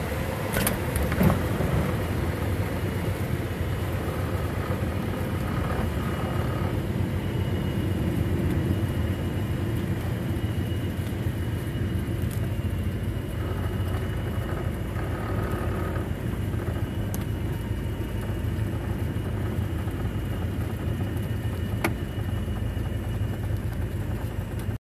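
Cessna 172's piston engine and propeller running steadily, heard from inside the cabin. There is a short knock about a second in.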